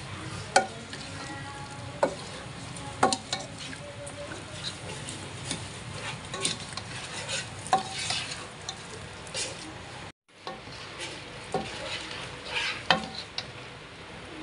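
Food sizzling in a hot pan while a metal utensil stirs and tosses it, with repeated sharp clinks and scrapes against the pan over the steady frying hiss. The sound drops out for a moment about ten seconds in.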